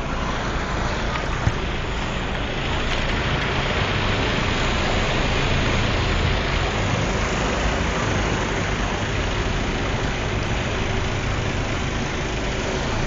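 Motor vehicle engine running steadily under a constant rushing hiss.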